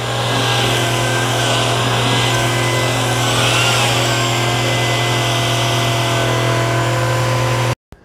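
Shark Detect Pro cordless stick vacuum running on carpet: a steady motor drone with several steady whining tones over a hiss of rushing air. It cuts off abruptly near the end.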